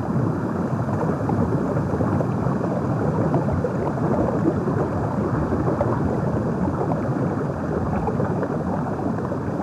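Steady, dull rushing rumble of water heard through a camera held under the surface, with no high sounds in it.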